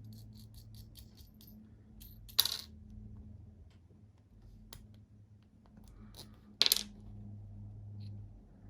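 Small metal clicks and clinks from handling a Medeco camlock and lock-picking tools: a quick run of light ticks at the start, then two sharper metallic clinks that ring briefly, one a couple of seconds in and one past the middle.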